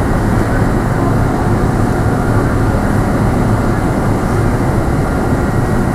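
A train passing close by, a loud steady rumble that holds throughout.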